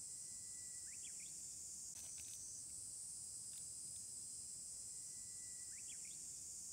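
Steady high-pitched chorus of insects shrilling. A short thin whistle ending in quick rising chirps sounds twice, about a second in and near the end.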